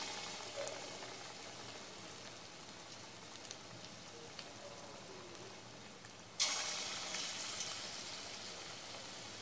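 Chicken ball mixture deep-frying in hot oil, a steady sizzle. About six seconds in the sizzle suddenly grows louder, then slowly eases off.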